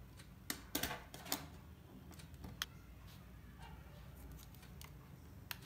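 A few light, sharp plastic clicks and taps from a Canon PowerShot G7 X Mark II compact camera being handled with its battery and card door open, as the battery is fitted into its compartment. Most come in a quick cluster in the first second and a half, with single clicks later and near the end.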